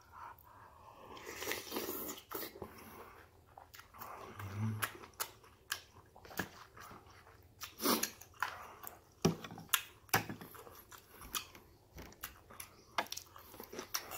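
Close-up mouth sounds of a person chewing a mouthful of spicy beef soup with glass noodles: irregular wet smacks and clicks.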